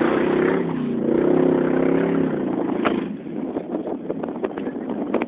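Engine of a General Lee replica car revving as it drives over a muddy dirt track, its pitch rising and falling for the first couple of seconds. The pitch then drops out into a rougher rattle with scattered knocks.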